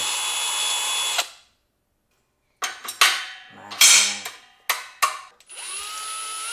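Power drill driving a tap into the ends of aluminium frame extrusions to cut threads. It runs steadily for about a second, then in several short bursts, with a rising whine near the end.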